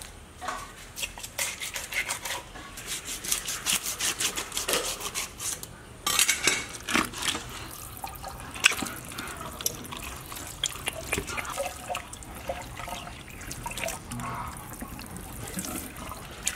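A knife scraping along a large fish's skin in quick repeated strokes. About six seconds in this gives way to a tap running into a stainless steel sink while the fish is rinsed and rubbed by hand.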